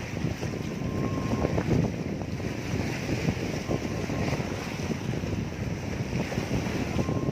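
Strong wind rumbling and buffeting the microphone, with choppy waves washing against the shore beneath it.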